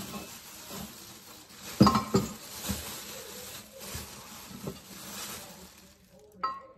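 Rustling and crinkling of wrapping, with a few knocks and clinks as Christmas decorations are handled out of a storage bin; the loudest knock comes about two seconds in.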